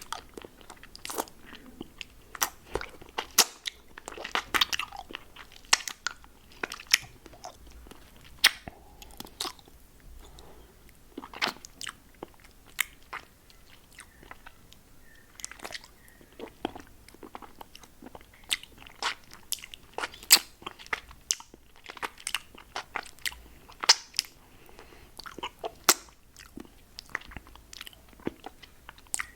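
Close-miked mouth sounds with a lollipop: irregular wet clicks and smacks of sucking and licking on hard candy, several a second with a short lull midway.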